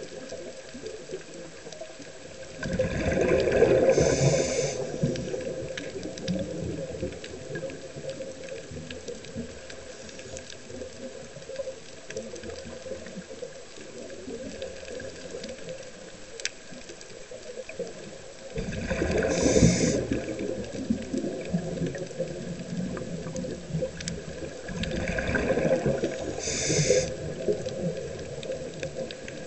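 Scuba diver's exhaled bubbles gurgling out of the regulator, heard underwater in three bursts of a couple of seconds each: near the start, about two-thirds of the way through and near the end. Between them a steady underwater hiss with faint scattered clicks.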